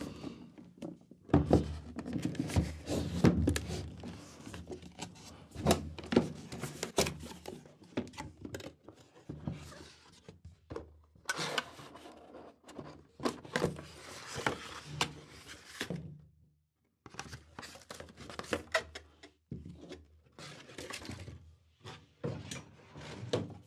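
Handling and opening a small cardboard box of microphone accessories on a table: irregular knocks, scrapes and rustling of cardboard and packaging, with a short quiet pause about two thirds of the way through.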